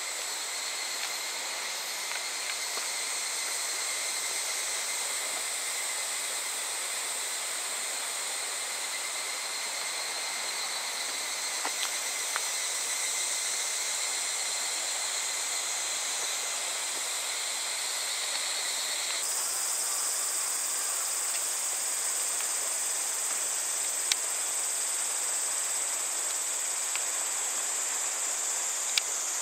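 Steady chorus of insects shrilling, a high held drone made of several even tones; about two-thirds of the way through, the lower tones stop suddenly and only the highest band carries on. A few faint ticks.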